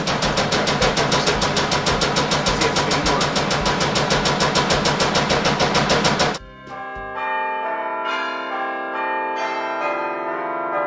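Compact front-loading washing machine running loudly, its noise pulsing about five times a second. It cuts off about six seconds in, giving way to bell-like chiming music.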